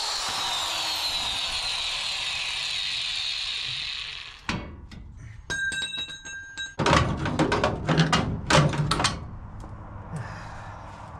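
Angle grinder spinning down, its whine falling in pitch, after cutting into the rusty underbody sheet metal. Then a knock, a briefly ringing piece of metal, and a run of loud metal clanks and bangs as the cut-out rusty sheet metal is knocked loose.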